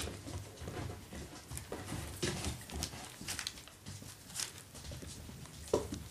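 Parson Russell Terrier puppies scrabbling about on newspaper and mouthing rope toys: scattered rustles, scrapes and small clicks, with one brief squeak near the end.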